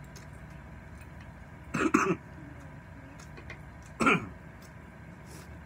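A man coughs while eating fiery Samyang spicy noodles: a quick double cough about two seconds in, then a single cough about four seconds in.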